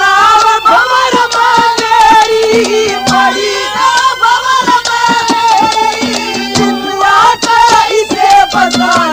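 Haryanvi ragni folk music: a wavering melody line over a fast, steady hand-drum beat, with a low held note that drops in and out.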